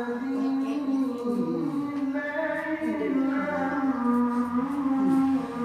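Singing: a melodic voice holding long, wavering notes that slide from one pitch to the next.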